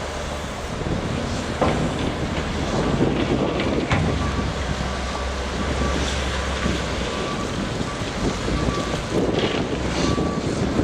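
Heavy construction machinery running with a low engine rumble, wind buffeting the microphone, a couple of sharp clanks, and a faint repeated beep through most of it.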